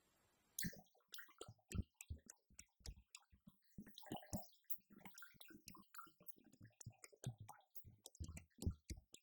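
Drum kit sounds from a Roland TD-50X electronic drum module loaded with a downloaded sound pack, played as an irregular groove of sharp hits with deep kick-drum thumps. The playing starts about half a second in, after a brief silence.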